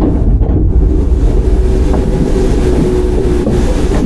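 Onboard running sound of a Tokyu 9000 series electric train: a steady low rumble of wheels on the rails, with a faint steady whine from its Hitachi GTO-VVVF traction drive.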